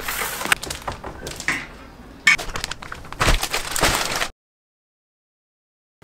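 A cardboard box and plastic-wrapped packages being handled and set down: crackling rustles with several sharp knocks. It cuts off suddenly to dead silence a little past four seconds in.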